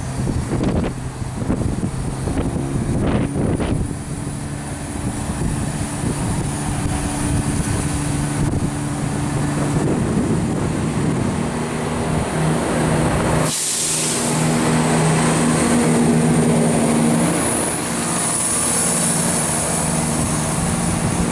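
Class 170 Turbostar diesel multiple unit's underfloor diesel engines running as the train moves along the platform, with a steady low engine note that grows louder in the second half as it draws past. A brief hiss comes about two-thirds of the way through.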